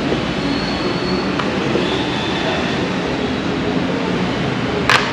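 Steady rumbling background din with no clear rhythm, and one sharp knock near the end.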